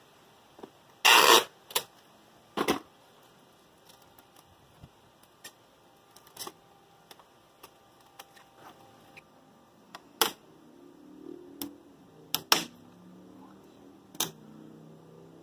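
Scattered clicks, taps and knocks of hands working the wooden kayak frame and its clamps, with a louder brief rustle about a second in and a few sharper knocks later on.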